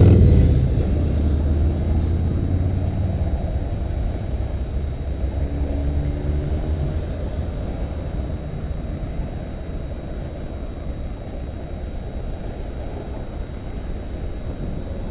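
CN freight train passing: the diesel locomotives' engine sound falls away over the first couple of seconds, leaving the steady low rumble of the cars rolling by.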